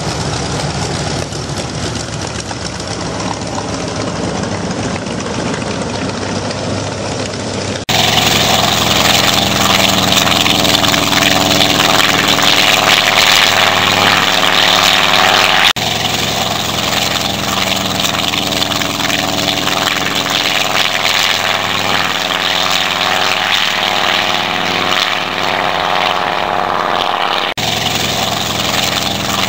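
Recorded sound of a Zero fighter's radial piston engine and propeller running steadily. It comes in spliced stretches: a lower, quieter running at first, an abrupt jump to a louder, fuller power setting about eight seconds in, a slight drop about halfway through, and another sudden change in tone near the end.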